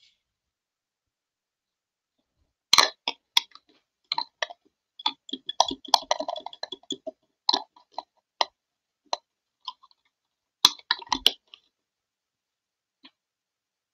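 Irregular sharp clicks and light knocks of small objects handled and set down on a glass-topped desk, in a cluster starting about three seconds in and a second short cluster near the end.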